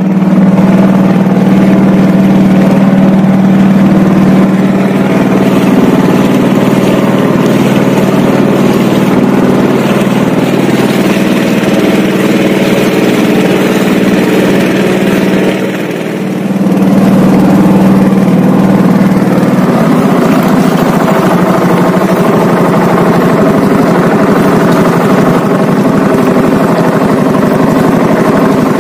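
The motor of a small wooden fishing boat running steadily at an even pitch as the boat travels across the water. Around the middle it dips briefly before running on.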